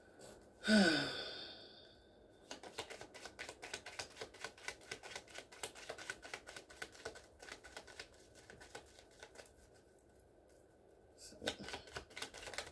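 A tarot card deck being shuffled by hand: a long run of quick, dense card clicks lasting several seconds. A short vocal sound falling in pitch comes just before it.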